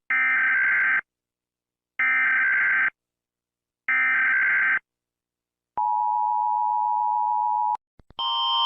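Emergency Alert System SAME header: three screechy data bursts of about a second each, a second apart. A steady attention tone follows for about two seconds and cuts off. After two clicks, a new alarm tone starts near the end.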